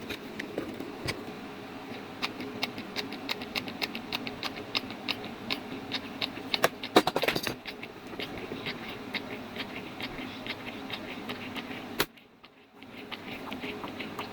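Irregular clicks and light rattles of small parts being handled, over a steady low hum, with a denser cluster of clicks about halfway through. The sound drops out abruptly for about a second near the end.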